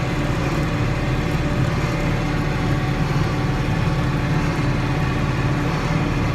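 John Deere 4960 tractor's six-cylinder turbo-diesel engine running steadily under load, driving a New Holland D800 big square baler at a slow, even pace.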